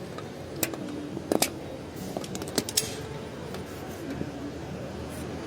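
Plastic cable ties being snipped off with cutters: sharp single snips, a pair about a second and a half in, then several in quick succession two to three seconds in.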